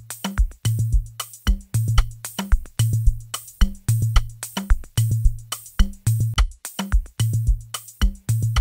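A programmed drum loop playing back: kicks with a long, low bass tail, sharp snare hits and steady hi-hat ticks in a regular pattern. The loop swaps back and forth between its mixed and unmixed renders of the same beat.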